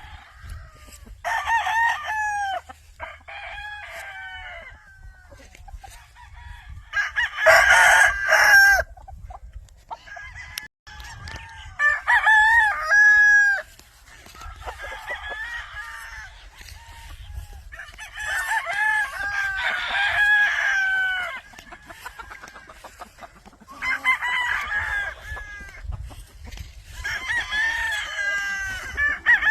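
McRae gamefowl roosters crowing again and again, one crow after another with overlapping calls, the loudest about a third of the way in, over a steady low rumble.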